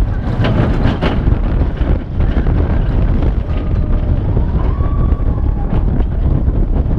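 Wind buffeting the microphone as a steel roller coaster train runs along its track at speed, with a constant low rumble and a few clatters about a second in.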